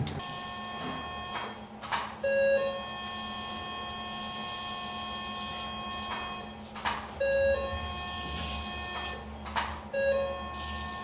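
Electronic operating-room equipment sounding three times: each time a short low beep is followed by a steady, multi-tone electronic sound held for a few seconds. A low steady hum runs under it, and a few brief knocks fall between the tones.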